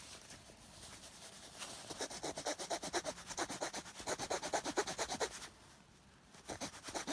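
The small saw blade of a Victorinox Huntsman Swiss army knife sawing with quick, short back-and-forth strokes. It starts about one and a half seconds in, pauses briefly near the end, then starts again.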